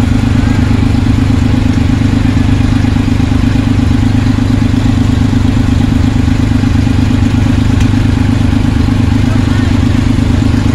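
Vintage tractor engine idling steadily at close range, with an even, fast chugging beat.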